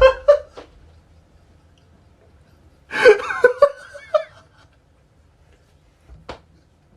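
A person laughing in a few short bursts about three seconds in, with a single click near the end.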